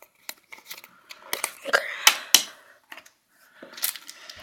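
Yu-Gi-Oh trading cards and their foil booster pack being handled: a run of sharp clicks and short rustles, busiest in the middle, as the cards are flipped through.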